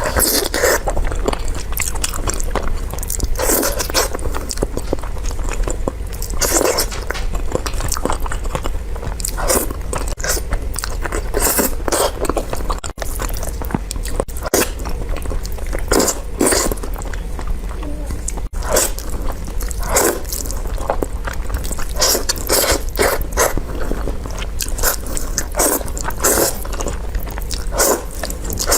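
A person biting and chewing crunchy food, with a sharp crunch every second or two at an uneven pace over a steady low hum.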